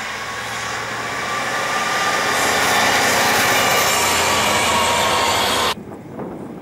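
Diesel freight locomotive approaching and passing at speed: engine and wheels on the rails grow steadily louder, then cut off suddenly near the end, leaving wind on the microphone.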